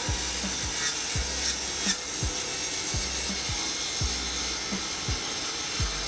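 Plunge track saw cutting a wooden board along its guide rail, a steady high hiss, with background music carrying a regular bass-drum beat about twice a second.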